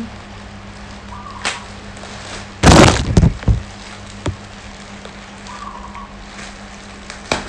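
Clear plastic bag of artificial flowers being handled: a loud crinkle of plastic about three seconds in, followed by a few lighter rustles and a sharp click near the end.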